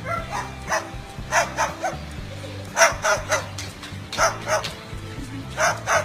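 White cockatoo imitating a dog's bark: a string of short barks in clusters of two or three, over background music.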